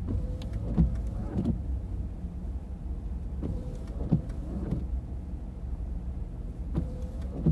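Steady low rumble inside a car waiting in traffic, with short sounds coming in pairs about every three seconds.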